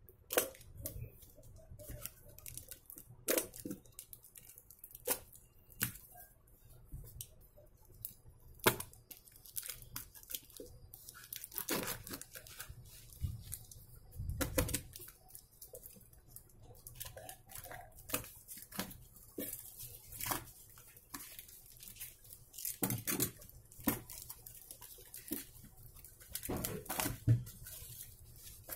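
A cardboard parcel wrapped in packing tape and plastic film being cut open with a utility knife and torn apart by hand. Irregular tearing, scraping and crinkling, with sharp cracks scattered throughout.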